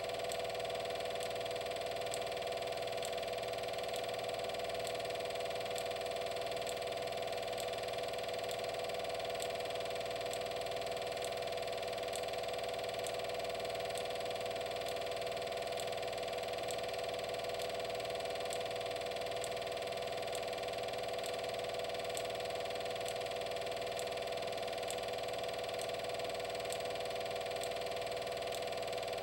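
Steady mechanical hum, unchanging throughout, with faint ticks repeating evenly about one and a half times a second.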